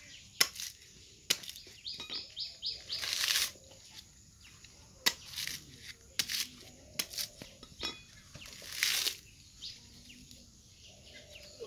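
A mature coconut's fibrous husk being split and stripped with a machete: sharp knocks of the blade into the husk, scattered through, with longer rips as husk fibres are torn away about three seconds in and again near nine seconds.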